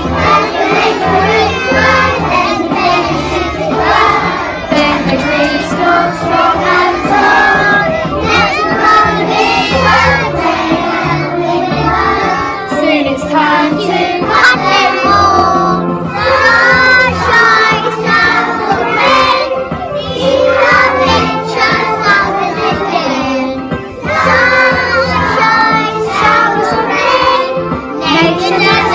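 A group of young children singing a song together over an accompaniment with a steady bass line.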